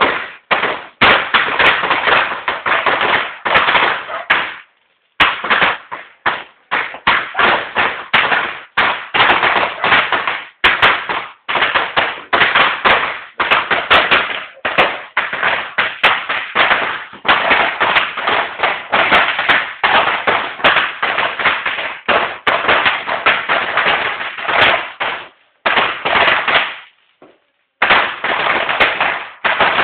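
Fireworks and firecrackers going off in a dense, rapid crackle of loud bangs, broken by a few short pauses.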